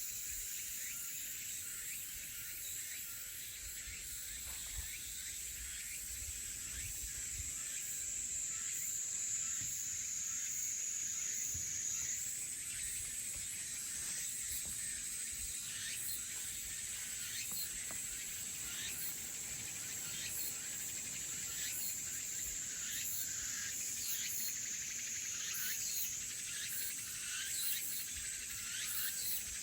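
Chorus of crickets and cicadas: a steady high-pitched trill with many short chirps over it. The trill steps up slightly in pitch twice, about halfway through and near the end.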